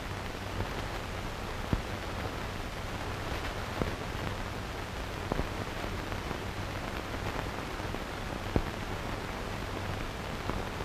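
Hiss and low hum from an old film soundtrack, with a handful of scattered clicks and pops, typical of a worn 16mm print.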